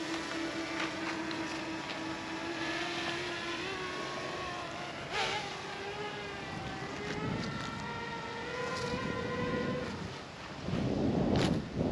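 DJI Mini 2 quadcopter's propellers humming as it lifts off from a low hover and climbs away fast, the pitch of the hum wavering and rising a little. About ten seconds in, wind buffets the microphone.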